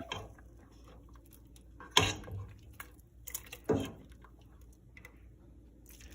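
Kitchen utensils knocking and clinking against a pan and dishes as pasta is served: a few separate clinks, the loudest about two seconds in.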